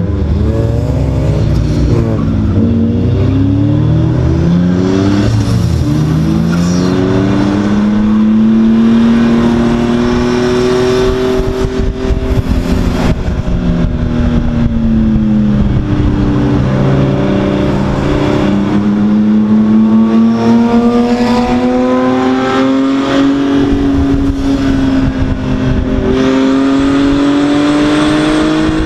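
Race car engine heard from inside its stripped cabin, running hard at speed. Its pitch climbs slowly through long pulls, dips briefly about halfway through, then climbs again.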